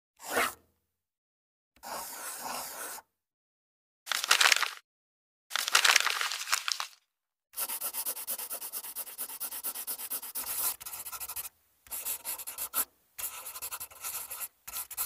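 Pencil-on-paper sketching sound effects: a few separate scratchy strokes, then about four seconds of rapid back-and-forth scribbling, then more short bursts of scratching near the end.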